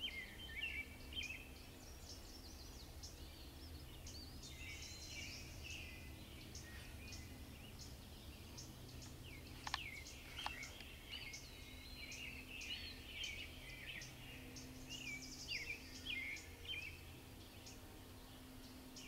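Several songbirds singing and chirping at once in a steady woodland chorus, with two quick downward-sliding calls about halfway through and a faint steady low hum underneath.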